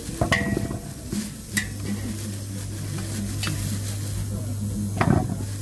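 Peeled green cooking bananas (matoke) dropped one by one into a large aluminium pot, each landing with a knock, the first two with a short metallic ring. A steady low hum starts about a second and a half in.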